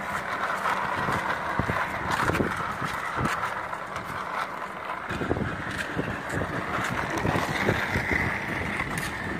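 Plastic toy car pushed by hand along a rough concrete ledge: its small plastic wheels roll with a steady gritty rolling noise and scattered light clicks.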